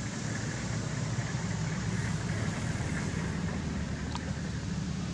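A motor running with a steady low hum, with a faint click about four seconds in.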